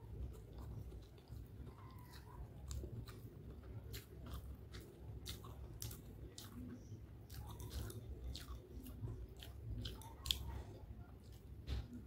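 Close mouth sounds of a person eating chicken hakka noodles: wet chewing with frequent small sharp clicks, two of them louder near the end.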